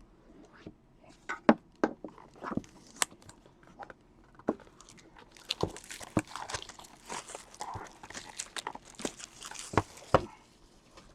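Shrink-wrapped trading card box being opened: a few sharp taps and knocks of handling, then plastic wrapping crinkling and tearing with many crackles for several seconds, ending in a couple of louder knocks.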